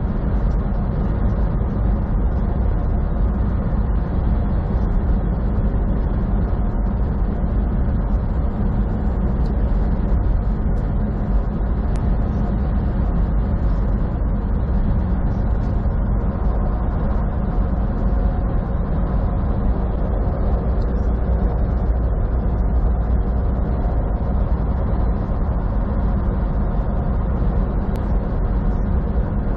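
Semi truck cruising at highway speed, heard from inside the cab: a steady low drone of engine and tyre noise that does not change.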